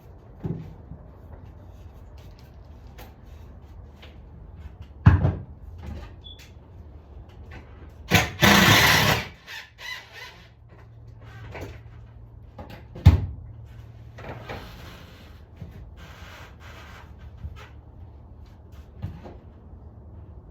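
Hands working with wires and tape: scattered clicks, two sharp knocks, and a loud rasp about eight seconds in, like electrical tape pulled off the roll, with softer rasps a few seconds later.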